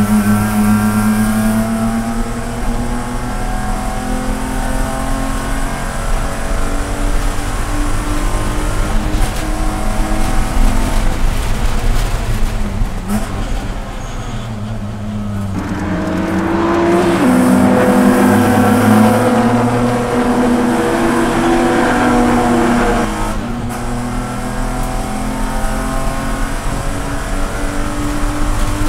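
Inside the cabin of a BMW Spec E46 race car, its straight-six engine running hard under race load, rising in pitch as it accelerates through the gears. The engine eases off and goes quieter for a couple of seconds near the middle, then pulls hard again.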